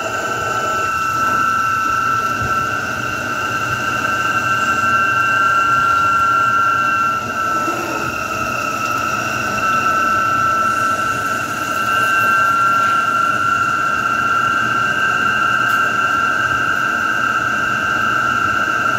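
CNC automatic lathe running while turning small screws under flood coolant: a steady high whine with a fainter, higher tone above it, over the hiss and splash of coolant.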